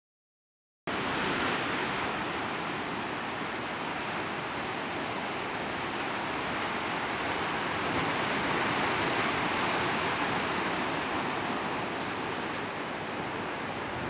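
Pacific Ocean surf washing over and around shoreline rocks: a steady rushing of water that cuts in suddenly about a second in and swells a little midway.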